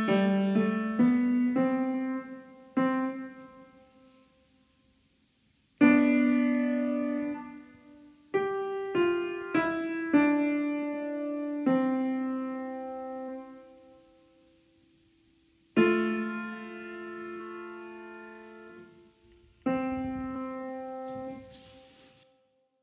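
Upright piano played by a child: a slow, simple melody in short phrases of single notes and chords, each phrase left to ring and die away, with pauses of about two seconds between some phrases.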